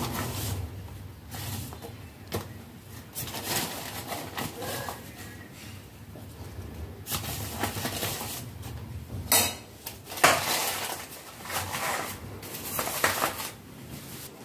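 Custard powder shaken from a paper packet into a stainless steel saucepan: repeated rustling of the packet and powder, with a couple of sharp metal clinks against the pan about two-thirds of the way through.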